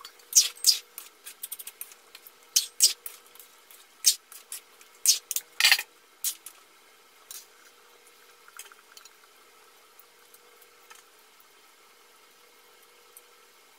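Metal lid and ladle clinking and scraping against an aluminium pan as a thick chicken stew is uncovered and stirred: a run of sharp clinks over the first six seconds, then only a few faint taps.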